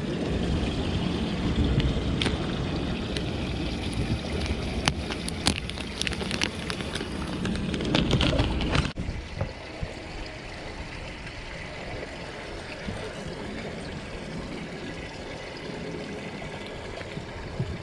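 Plastic bait package crinkling and crackling in hands over a low rumble. About nine seconds in, it cuts abruptly to a quieter, steady wash of water against the boat with a few small ticks.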